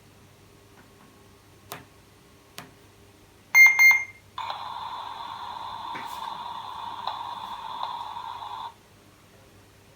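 Sound chip of an electronic plush monster toy playing through its tiny speaker: two short, bright beeps about three and a half seconds in, then about four seconds of a steady buzzy noise effect that cuts off suddenly. Two faint clicks come before.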